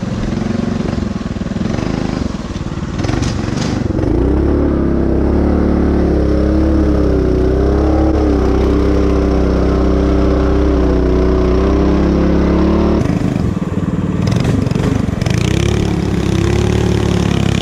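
Homemade fat-tire motorcycle engine running under load as the bike pulls through soft mud, held at fairly steady revs with small rises and falls. The revs drop off about thirteen seconds in and pick up again a couple of seconds later.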